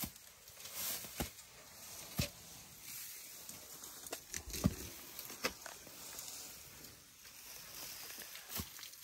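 Elephants moving and feeding in dry grass at close range: rustling and snapping of grass and brush with scattered sharp clicks and knocks, and a louder low bump about halfway through.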